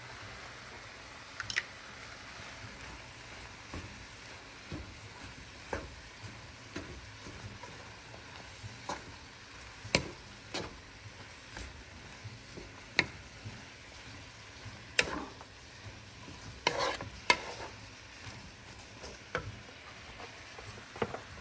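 Wooden spoon stirring shredded cabbage and carrots in a nonstick frying pan over a steady low sizzle. The spoon knocks sharply against the pan again and again, every second or two.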